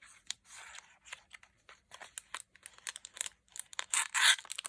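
Hands handling a small cosmetic item and its packaging: a string of short clicks and crinkling, tearing rustles of paper and plastic, with a louder rustle about four seconds in.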